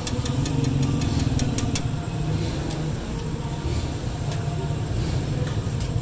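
Street traffic running steadily as a low rumble, with a few sharp taps or knocks in the first couple of seconds.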